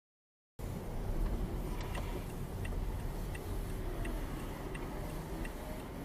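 Dead silence, then about half a second in a car's interior sound begins: a steady low rumble with a turn-signal indicator ticking evenly, about three clicks every two seconds.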